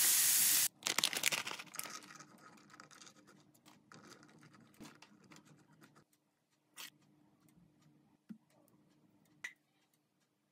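Chicken and vegetables sizzling in a wok, cut off suddenly under a second in; then a flour tortilla rustling and scraping as it is laid and pressed flat in a dry frying pan, followed by soft handling as shredded cheese is scattered over it and a few sharp light taps.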